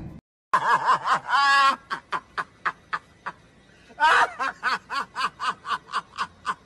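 A man laughing hard in a run of rapid, rhythmic 'ha' bursts, about four or five a second, pausing briefly and then breaking into a louder outburst about four seconds in.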